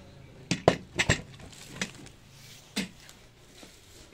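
A gaming chair's seat mechanism being fitted onto its gas-lift cylinder and base: a run of sharp knocks and clacks, several close together in the first second or so, then two single knocks.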